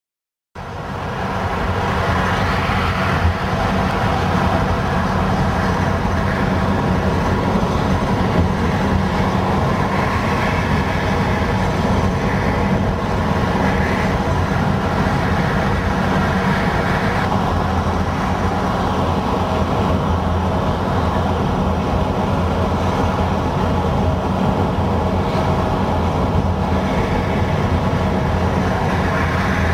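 Steady drone of engine and road noise inside a coach travelling at speed on a motorway, starting abruptly about half a second in.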